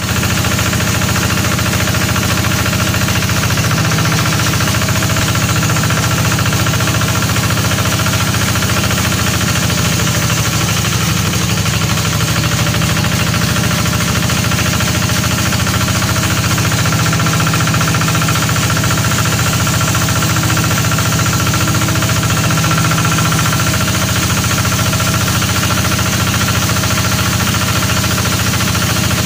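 Band sawmill running steadily, its drive making a low, even drone.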